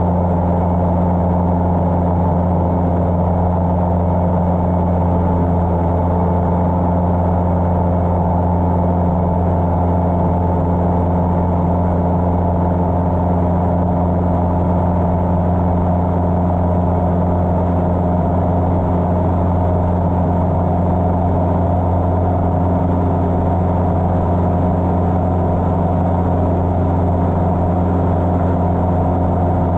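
Cessna 150's Continental O-200 four-cylinder engine and propeller running steadily in flight, an even drone with no change in pitch.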